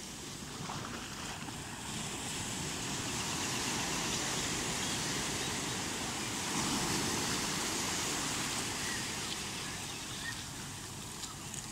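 Small sea waves washing and breaking, with wind on the microphone.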